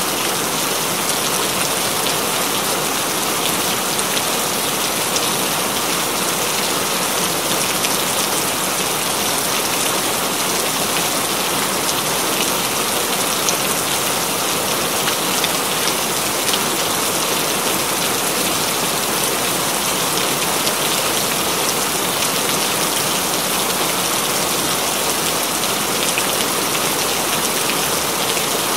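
Steady rain falling: a dense, even patter of drops with no thunder.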